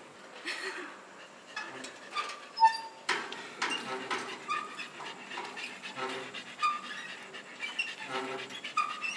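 Metal playground swing squeaking in a steady rhythm as it swings back and forth, about one squeak every two seconds, with sharp knocks from its frame.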